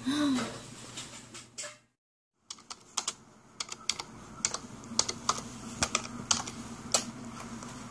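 Typing on a computer keyboard: irregular key clicks, about two to three a second, starting after a brief dropout about two seconds in. A short, louder pitched sound comes at the very start.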